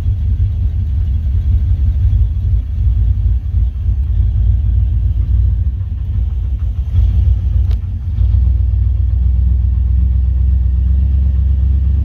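Chevrolet C1500 pickup engine being cranked in a flooded condition with fuel in the cylinders: it labours unevenly, then catches a little after eight seconds and settles into a steady fast idle.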